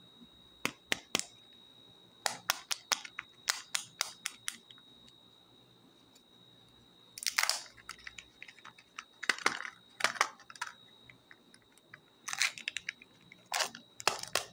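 Plastic wrapper of a Fun & Joy chocolate egg being handled and torn open, then the sealed film lid peeled off one of its plastic cups. A quick run of sharp crinkling clicks is followed, about seven seconds in, by several longer crackling rips.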